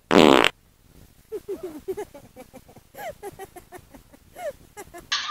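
A giraffe breaking wind: one loud, buzzy fart lasting about half a second at the very start, followed by a run of short, quieter pitched sounds.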